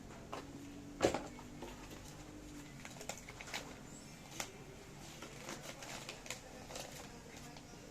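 Torque wrench being handled: one sharp click about a second in, then scattered light clicks and taps.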